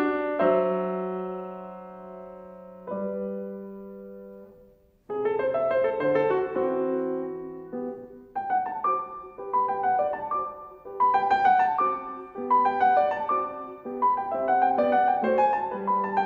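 Steinway grand piano played solo: a held chord rings and fades away, a near-silent pause about five seconds in, then the playing resumes with a steady stream of notes.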